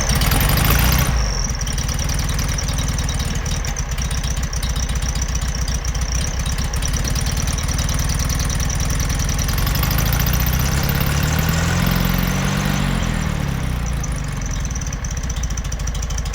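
Classic VW Beetle's air-cooled flat-four engine running after catching on a new ignition condenser, loudest in the first second, then idling steadily. About ten seconds in the revs rise briefly and fall back to idle.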